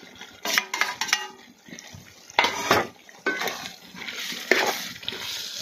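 A metal spoon stirring and scraping through thick masala in a metal pot, with a few ringing metal-on-metal clinks about half a second to a second in, then a series of separate scraping strokes.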